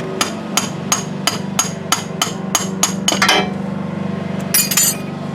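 Hammer tapping at a steady rate of about three blows a second, stopping about three seconds in, followed by a short rattling clatter near the end.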